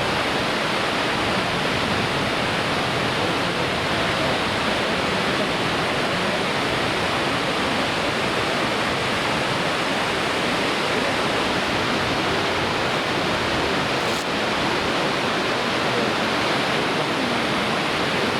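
Steady roar of Fukuroda Falls: a large multi-tiered waterfall, its water crashing down in a constant, even rush.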